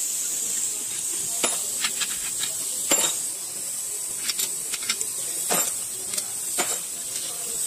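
Scattered sharp metallic clicks and clinks as engine parts are handled on a bare aluminium engine crankcase, the loudest about three seconds in, over a steady high-pitched hiss.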